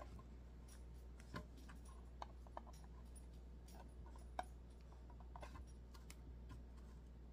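An old knife blade scraping paint and Mod Podge off the center of a painted metal jar lid down to bare metal: faint, irregular scratches and light ticks, the sharpest about four seconds in.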